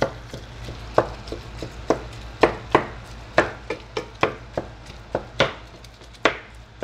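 Wooden spatula chopping up raw ground beef in a stainless steel pan, its edge knocking against the pan bottom in quick, irregular strokes, about two or three a second, stopping shortly before the end.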